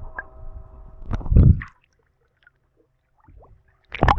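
Boat engine running with a steady hum, then a loud low thump about a second and a half in. This is followed by a couple of seconds of dead silence and a sudden loud noise near the end.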